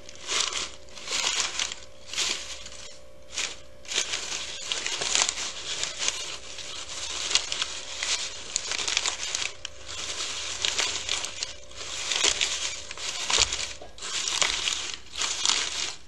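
Strips of brown paper bag crumpled and scrunched by hand into a nest shape: an uneven crackling rustle with frequent louder crinkles.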